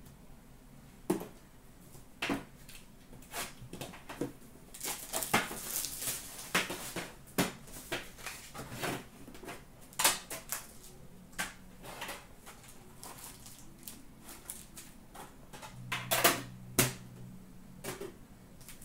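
Hands handling trading cards, foil packs and a metal Upper Deck hockey card tin: irregular clicks, taps and light clatter, busier about five seconds in, with a sharper knock about ten seconds in and again near the end.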